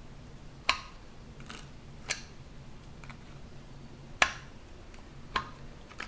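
Steel filling knife clicking and scraping against a cast iron gutter while spreading body filler: a handful of sharp, irregularly spaced clicks, each with a brief metallic ring, over a faint low hum.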